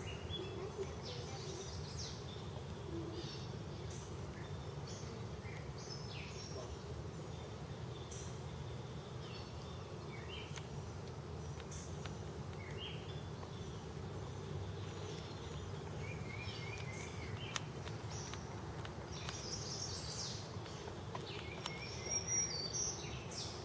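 Honeybees buzzing around a Warre hive, a steady low hum, with birds chirping now and then and a couple of quick runs of chirps in the second half.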